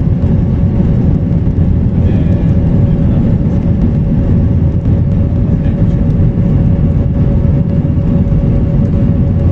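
Airbus A321 cabin noise in flight shortly after takeoff, heard from a window seat over the wing: a steady, deep drone of the jet engines and airflow, with one constant hum running through it.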